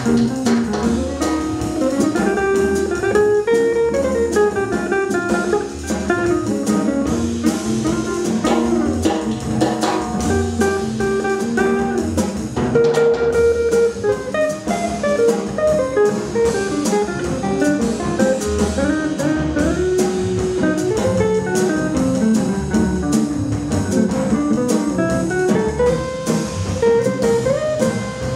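Small jazz group playing an instrumental tune live: guitar lines over upright bass and drum kit.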